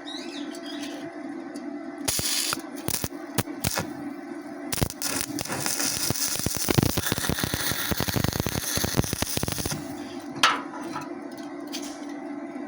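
Stick welding arc on thin galvanized sheet. About two seconds in it is struck in short stop-start crackles, then it burns with a steady crackle and sputter for about five seconds before breaking off. A steady low hum runs underneath, and a brief sharp noise comes near the end.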